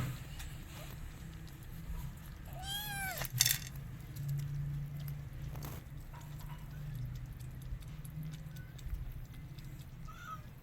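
A cat lapping soup with quick, faint wet clicks, and a single rising-and-falling meow about three seconds in.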